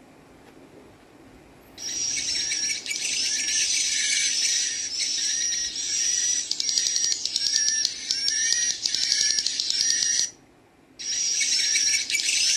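Recorded swiftlet chick calls, a rapid run of high 'ci ci ci cu cu cut' chirps mixed with the calls of adult swiftlets, played back through a gadget's speaker. The chirping starts about two seconds in, breaks off briefly near ten seconds in, then resumes.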